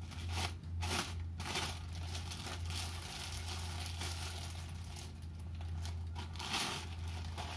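Plastic wrapping film crinkling and rustling as it is pulled off a new stainless-steel motorcycle exhaust silencer, louder in patches, over a steady low hum.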